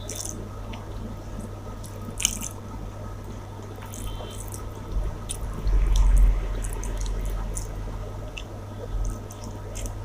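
Close-miked eating sounds: wet chewing and scattered mouth clicks of a person eating rice and chicken curry, over a steady low hum. A louder low bump comes about six seconds in.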